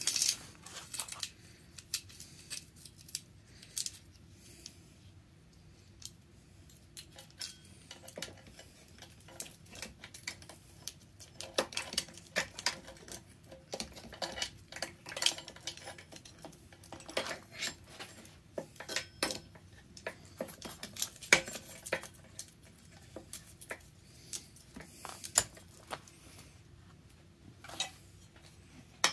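Steel saw chain clinking and rattling as it is handled and worked onto a chainsaw's guide bar, with scattered light metal clicks and taps of the bar against the saw body.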